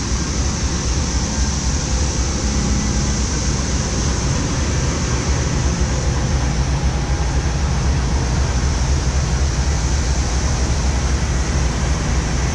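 Amtrak diesel locomotives, a GE P42DC and a Siemens ALC-42, running at close range: a loud, steady low engine hum under constant fan and blower noise.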